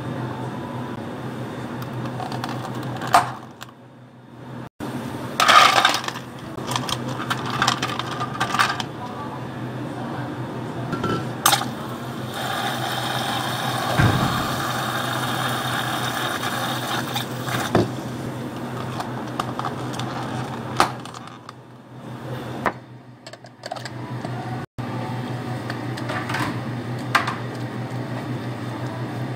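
Drink-making clatter: sharp clinks of ice and knocks of plastic cups and lids, in irregular bursts, over a steady low hum.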